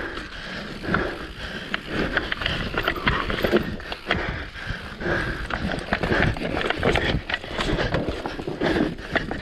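Mountain bike rattling and clattering down a rough dirt trail, with tyres on loose dirt and roots and many sharp knocks from the bike as it hits bumps.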